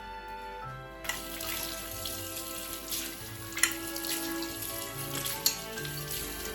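Water running from a tap, turned on about a second in, with two sharp clinks.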